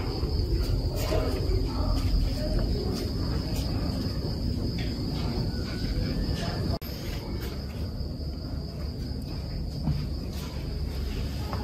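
Crickets chirping steadily in a continuous high drone over a low background rumble, with a few faint clicks.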